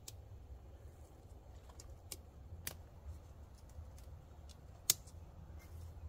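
Scattered sharp clicks of a Litefighter 1 tent's mesh body being clipped onto its poles, the loudest a little before five seconds in, over a low steady rumble.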